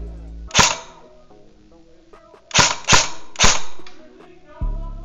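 Airsoft AK74u replica firing single shots: one shot, then after a pause three more in quick succession, over background music.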